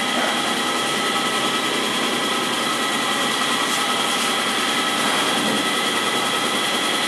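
Mitsubishi CNC gear hobbing machine running: a steady machine hum and hiss with several constant high whining tones held throughout.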